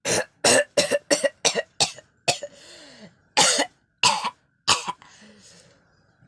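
A person coughing hard, about ten coughs in all: a fast run of seven in the first two and a half seconds, a longer, rougher sound, then three more coughs spaced out.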